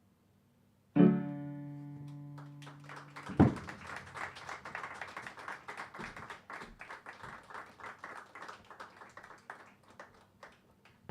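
A final chord rings out about a second in and dies away, then an audience applauds, the clapping thinning toward the end. A single loud thump comes a couple of seconds into the applause.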